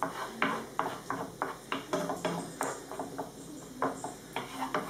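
Wooden spatula stirring onions in a nonstick frying pan, knocking and scraping against the pan about two or three times a second, over a low sizzle of onions softening in butter and olive oil.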